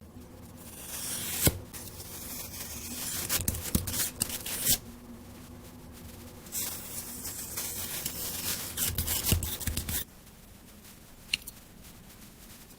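Crystal-clear jelly cubes being sliced: crisp, squishy cutting sounds in two long strokes, each with sharp clicks. After that it goes quieter, with one more click near the end.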